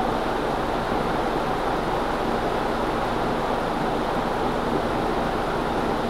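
Leslie Locke (Evergo) Scottsdale 48-inch ceiling fan running at speed: a steady rush of air from the spinning blades over a faint low motor hum.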